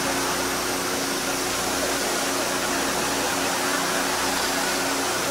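High-volume gas-powered water pump running steadily, a constant engine hum under the rushing hiss of the water jet spraying from the hose nozzle.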